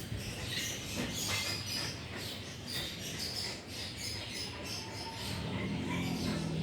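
A cat crunching and chewing dry dog kibble: irregular small crunches and clicks.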